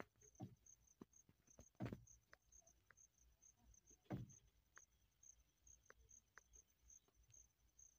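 Near-silent open-air quiet with a faint insect chirping high and evenly, about twice a second, and a few soft knocks.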